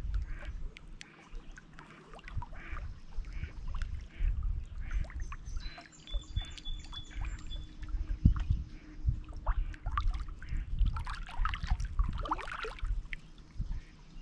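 Small lake waves lapping and splashing against shoreline rocks in irregular surges, with birds chirping over them. A thin, high whistled note sounds about six seconds in.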